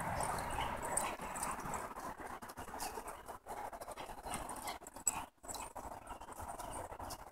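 Two pit bull dogs panting as they run and play chase on grass.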